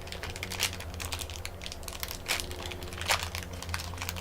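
Plastic snack packaging crinkling and crackling irregularly as it is handled, over a low steady hum.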